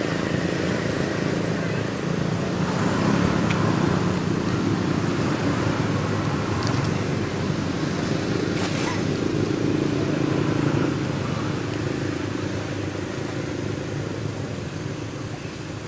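A motor vehicle engine running steadily, its sound slowly fading toward the end.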